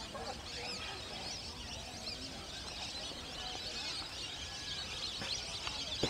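Faint chorus of small birds chirping, many short calls overlapping, over a low steady hum.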